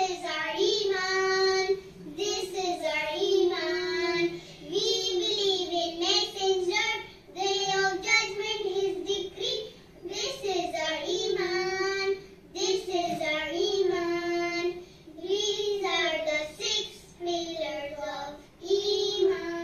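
A child's voice singing unaccompanied, in short phrases of about two seconds with brief pauses between them.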